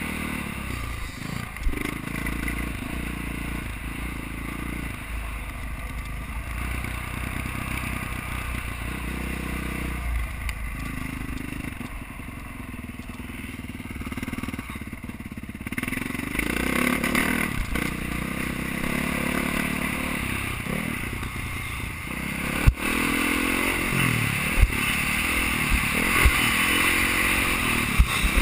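Dirt bike engine being ridden hard, revving up and down through the gears, heard from the rider's helmet camera. It gets louder about halfway through, and a few sharp knocks come near the end.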